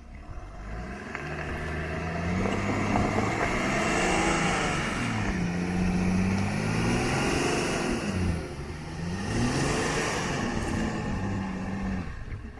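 Land Rover Defender engine revving up and down about three times under heavy load, towing a caravan out of soft sand, over the rushing of tyres churning the sand. It strains because the tyres are at full pressure and the caravan's nose weight loads the rear axle, so the wheels dig in.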